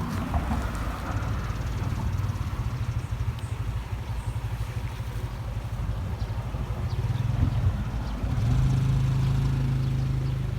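A motor engine running steadily with a low hum, growing louder and a little higher in pitch about eight seconds in.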